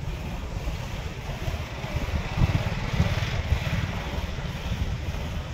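Low rumble of vehicle engines in heavy traffic, with wind buffeting the microphone as the camera moves slowly past the queued trucks and cars.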